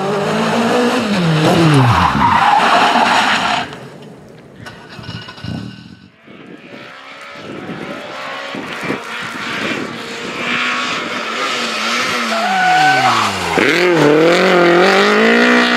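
Renault Clio Williams Group A rally cars' 2.0-litre 16-valve four-cylinder engines, heard in turn through several corners. The revs drop sharply on braking and downshifting, then climb hard under acceleration, with tyre noise as the cars skid through the bends.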